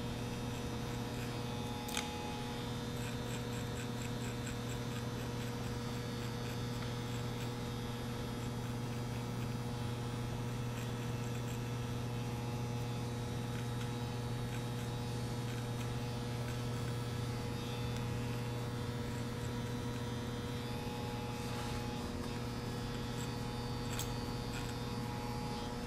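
Adjustable-blade electric hair clipper running with a steady hum as it fades short hair on the side of the head, with a small click about two seconds in.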